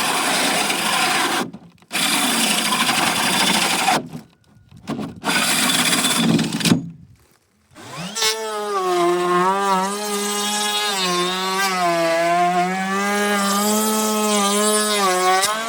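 Woodworking on timber: first several noisy stretches of cutting or rubbing on wood, stopping briefly three times. Then, about eight seconds in, a power tool's motor spins up and runs at a steady pitch that wavers slightly.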